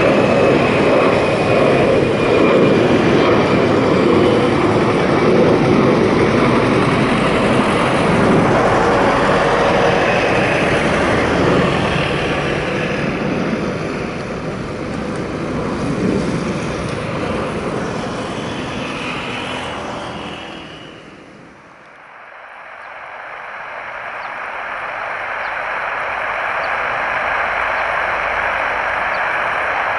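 Airbus A320's CFM56 jet engines at takeoff power: a loud roar with a high whine, slowly fading as the aircraft climbs away. About two-thirds of the way through, the sound cuts out abruptly and is followed by a steadier, quieter rushing hiss.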